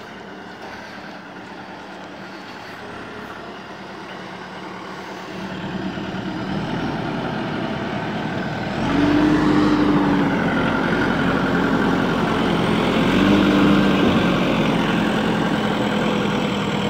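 JCB 3DX backhoe loader's four-cylinder diesel engine running steadily, growing louder as the machine comes close. About halfway through it steps up to a heavier, humming note, twice, as the loader works with the concrete pipe in its bucket.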